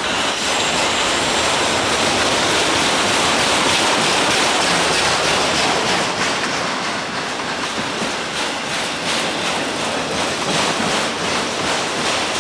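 A train passing close by: a steady, loud rush of wheels on rail, with a faint rhythmic clatter of wheels over the rail joints in the second half.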